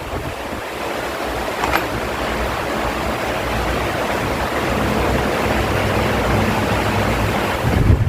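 Electric fan running, its airflow hitting the microphone as a steady rushing wind noise that grows a little louder toward the end. A faint click about two seconds in.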